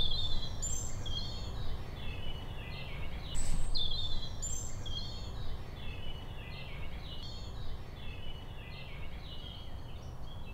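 Several songbirds singing outdoors: overlapping high chirps and short falling phrases, over a low steady background rumble, with a brief burst of noise about three and a half seconds in.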